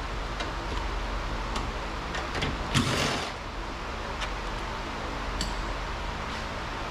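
Ratchet with a 10 mm socket on an extension loosening a door mirror's mounting screws: irregular light clicks of the ratchet pawl, with a louder scraping rustle about three seconds in.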